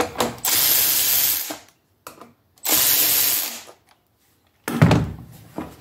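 Red cordless electric ratchet spinning out the seat's two 10mm screws: two runs of the motor, about a second each, then a knock near the end.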